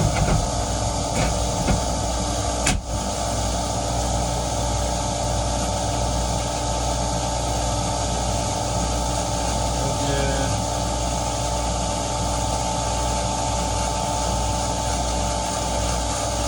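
Well pump running with a steady hum as it fills the new pressure tank, building pressure toward its 60 psi cut-off. A single sharp knock about three seconds in.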